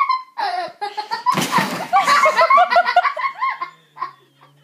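People laughing in a quick run of short ha-ha bursts, with a loud, noisy burst lasting about a second just before the laughter peaks.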